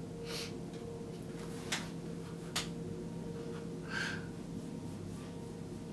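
A man sniffing and breathing audibly, twice, with two faint clicks between, over a steady low hum.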